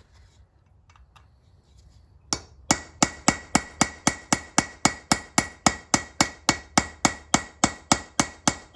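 Hammer blows flaring over the tail of a brake-lining rivet on a truck drum brake shoe, the rivet set on a pin on an anvil. After about two seconds of quiet comes a single blow, then a fast, even run of about four blows a second, each with a metallic ring.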